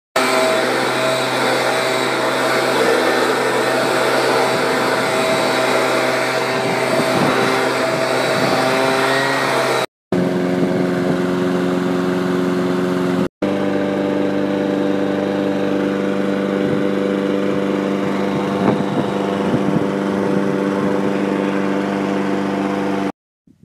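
Small petrol lawn mower engines running steadily, in several short clips that break off abruptly about ten and thirteen seconds in.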